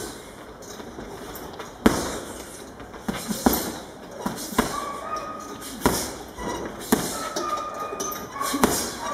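Gloved punches landing on a hanging heavy punching bag: about seven dull thuds at an uneven pace, some coming in quick pairs.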